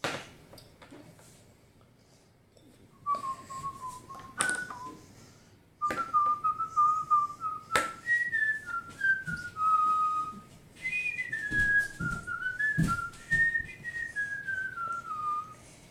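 A child whistling a tune that wanders up and down in pitch, in three phrases, with a few sharp knocks of small plastic figures set down on a table.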